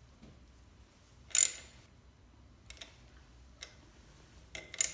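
Socket ratchet tightening the oil drain screw back in: a short ratcheting burst about a second and a half in, then a few faint separate clicks.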